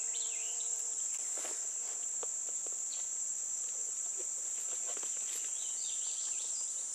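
Steady high-pitched drone of an insect chorus, with a few faint clicks and rustles of steel snare wire being handled and a few short chirps.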